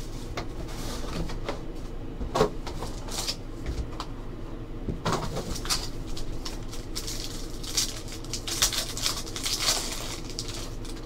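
Hands opening a box of Panini Preferred trading cards: scattered taps and scrapes of cardboard and packaging, then a gold foil card pack crinkling as it is torn open, denser in the second half.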